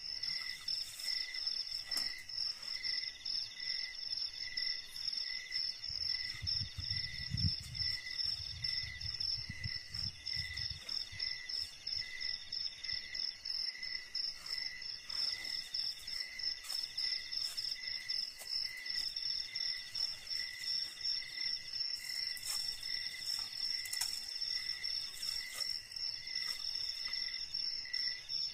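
Forest insects calling steadily, several at once: a fast, even high trill, a slower chirp repeated about one and a half times a second, and phrases that start and stop. A low rustle comes through for a few seconds about six seconds in.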